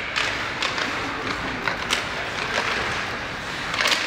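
Steady background noise of a game in progress, spectators and play, with a few short sharp knocks or clacks scattered through it, the loudest near the end.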